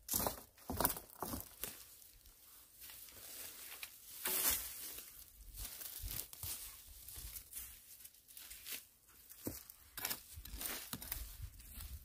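Dry dead grass and fallen leaves rustling, crackling and tearing in irregular scratchy bursts as old weeds are pulled up and cut out by hand with a small blade.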